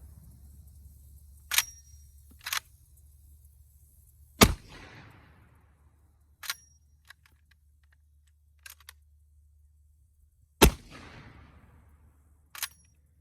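Two blasts from an original Winchester Model 1887 lever-action 12-gauge shotgun firing black-powder shells, about six seconds apart, each with a long rolling echo. Between the shots come shorter metallic clacks of the lever being worked to cycle a fresh shell.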